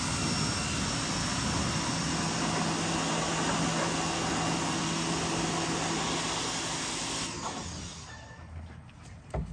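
A motor-driven machine running steadily, a low hum under a loud rushing noise, that shuts off about seven seconds in and dies away over the next second. A single short knock near the end.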